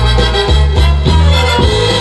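Loud Korean trot backing music with a steady, driving beat and heavy bass; no singing is heard.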